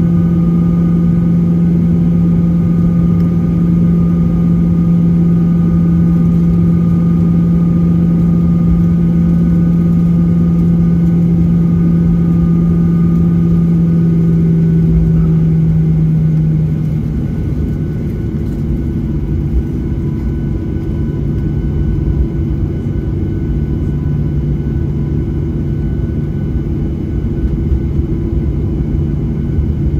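Boeing 737-800's CFM56 jet engines at taxi power, heard inside the cabin as a steady hum with a strong low drone. About 17 seconds in, the drone drops slightly in pitch and gets a little quieter, as the thrust is eased back.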